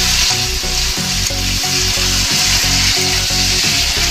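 Chicken pieces sizzling as they fry in oil in an aluminium kadhai, a steady hiss, while a metal spatula stirs and scrapes them around the pan.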